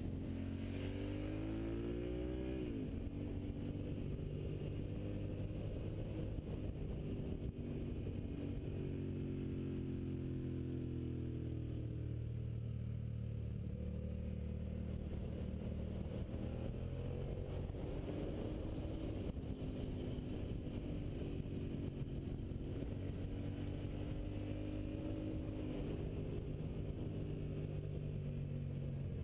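Suzuki SV650's V-twin engine running under load on a winding road. Its pitch rises and falls with throttle and gear changes, climbing in the first couple of seconds and then dropping sharply.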